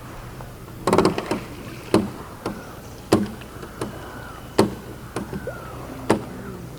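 A series of sharp knocks and clicks, a quick cluster about a second in and then single ones every half second to a second, over a steady low hum.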